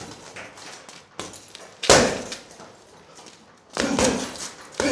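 Punches landing on a hanging heavy punching bag: hard single blows about two seconds apart, each a sharp slam.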